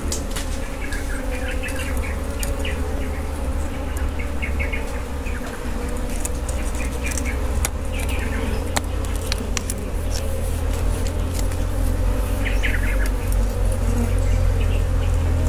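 Wild honeybees buzzing steadily from a nest in a rock crevice, stirred up as a rod probes the hole. Scattered sharp clicks of the rod knocking against stone.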